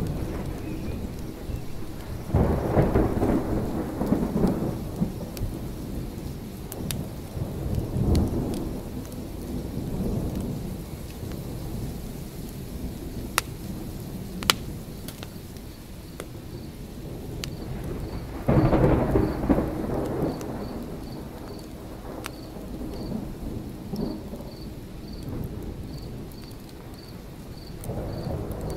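Thunderstorm ambience: steady rain with rolling thunder that swells about two seconds in and again around eighteen seconds, and a third roll beginning near the end. A few sharp clicks stand out in between.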